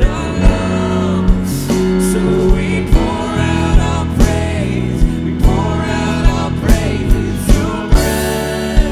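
Live worship music: a man singing over sustained chords from a Roland RD-700GX stage keyboard, with a steady drum beat about two and a half times a second.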